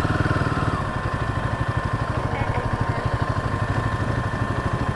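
Royal Enfield Himalayan's single-cylinder engine running at low revs with an even pulsing beat, heard through a mic inside the rider's helmet.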